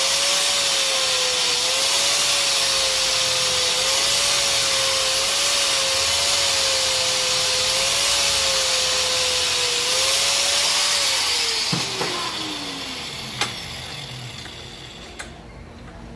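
Electric grinder running against a welded steel gear shift lever, grinding and buffing the weld smooth; its motor pitch dips and recovers as it is pressed on. About 11 s in it is switched off and winds down with a falling whine, and a few light knocks follow.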